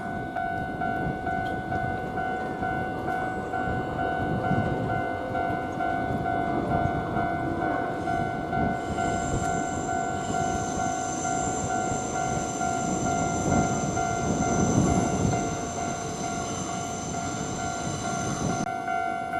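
Japanese level-crossing alarm ringing steadily while an electric train runs over the crossing, its wheels rumbling on the rails. A high whine joins in about nine seconds in and cuts off suddenly near the end.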